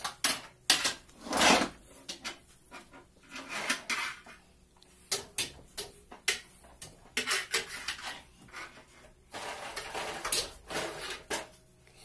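Plastic toy vacuum cleaner being pushed and dragged about, its head and hose knocking and clattering on the floor and furniture in irregular light knocks.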